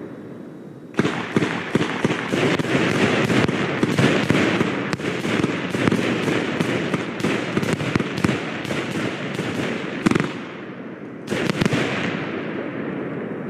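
Consumer New Year's fireworks going off: a dense, rapid string of sharp bangs and crackles for about nine seconds, stopping suddenly, then one more brief burst near the end that fades out.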